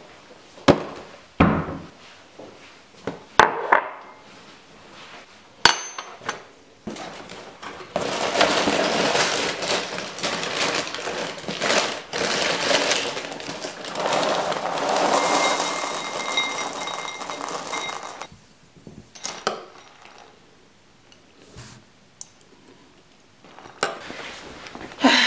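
Kitchen handling: several sharp clicks and knocks of crockery and cupboard doors, then about ten seconds of dense rattling and rustling as puffed cereal is poured from its box into a ceramic bowl, with light clinks of the bowl.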